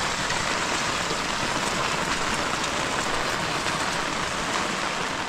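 Heavy rain falling steadily: a dense, even hiss with faint ticks of individual drops.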